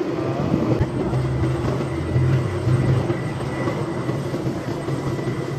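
Military helicopter running on the ground: a steady low engine and rotor drone with a thin high whine over it.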